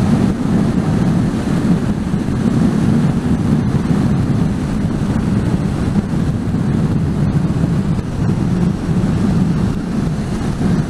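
KTM Super Duke V-twin motorcycle engine running at a steady cruising speed, mixed with constant wind rush on the helmet-mounted microphone.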